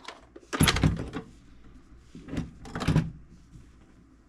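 Clunks and knocks from a toolbox being worked on by hand: a loud cluster about half a second in, then two shorter knocks in the second half.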